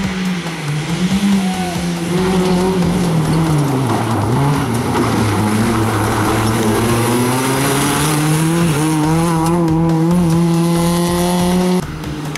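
Rally car engine under load. Its pitch swings up and down for the first few seconds, then climbs steadily as the car accelerates, and the sound drops sharply just before the end.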